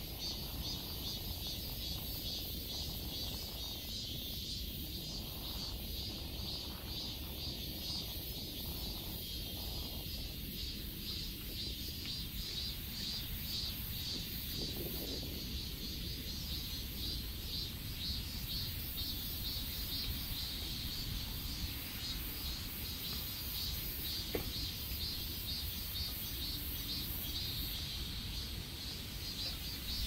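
A steady chorus of insects chirping in an even, high-pitched pulsing rhythm, over a low, steady background noise.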